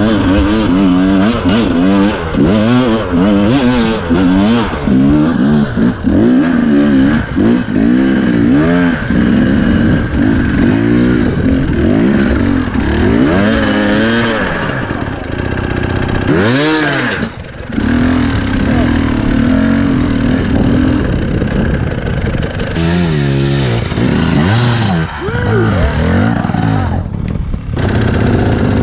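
KTM 250 EXC two-stroke dirt bike engine, heard from on board, revving up and down again and again under the rider's throttle on a slippery trail. About two-thirds of the way through the revs fall away briefly before it picks up again.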